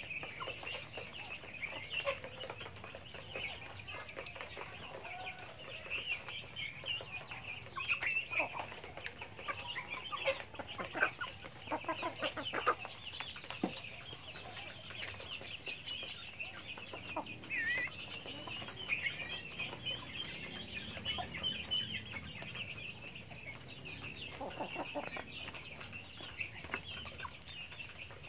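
Backyard chickens clucking softly as they forage, with a steady high chirping running underneath.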